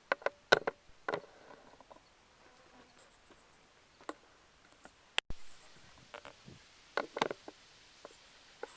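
Scattered sharp clicks and pops of airsoft gunfire, several in the first second, single ones later, and a quick cluster near the end.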